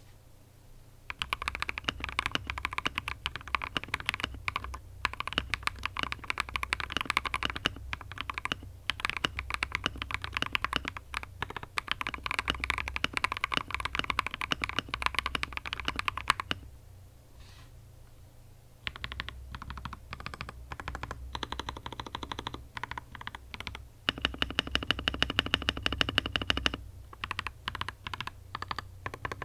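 Typing test on an Akko 5075s gasket-mounted 75% mechanical keyboard with Akko Pom Silver two-stage-spring switches, ASA-profile keycaps and a tape-modded PCB, giving a poppy keystroke sound. Fast continuous typing runs for about fifteen seconds, stops for a couple of seconds, then picks up again as slower single key presses with a quicker burst of typing in between. A steady low hum runs underneath.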